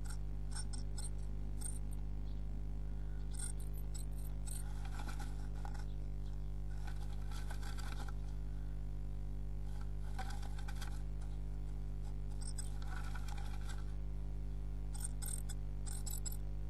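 Steady electrical hum with scattered clicks and scratching from a tit moving about inside its nest box and working the nest material during nest building. The hum is the loudest part throughout.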